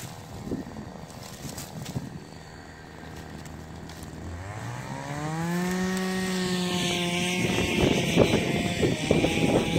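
An engine rises in pitch over about a second, then holds a steady pitch for a couple of seconds before giving way to a louder rushing noise near the end. Faint rustling of dry branches comes before it.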